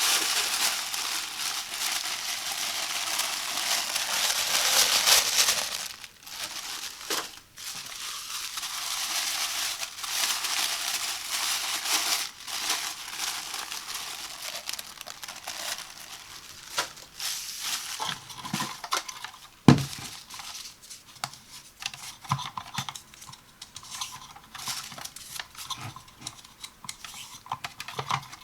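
Plastic and paper packaging crinkling and tearing as a toy blaster is unpacked, dense for the first six seconds or so. After that come scattered clicks, taps and rustles of hard plastic being handled, with one sharp knock about 20 seconds in.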